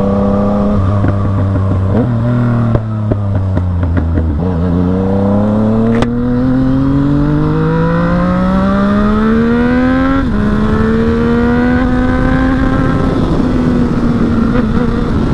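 Yamaha MT-09's three-cylinder engine under way: steady running, a dip in revs about four seconds in, then a long steady rise in pitch as it accelerates, a sudden drop at an upshift about ten seconds in, and steady running again.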